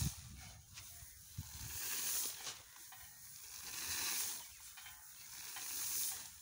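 Hand winnowing of threshed rice paddy: a hissing rustle of grain showering down onto the heap, swelling and fading three times about two seconds apart.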